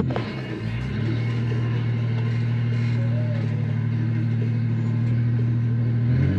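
Off-road 4x4's engine idling steadily, a low, even hum.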